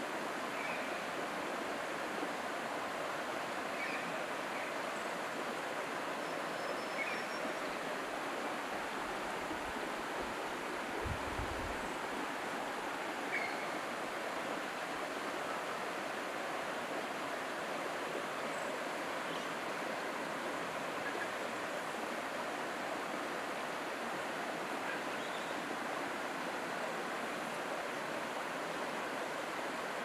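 Steady rushing of a creek running over rocks, with a few faint short chirps.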